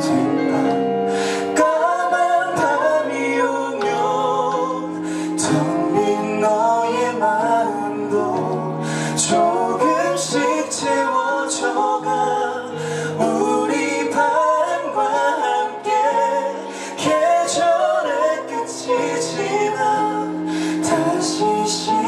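A woman and a man singing a duet into microphones over plucked guitar accompaniment, amplified through a PA.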